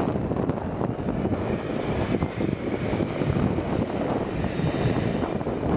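Boeing 777-300ER's GE90 jet engines running at low taxi thrust as the airliner turns onto the runway: a steady rumble with a faint whine, and wind buffeting the microphone.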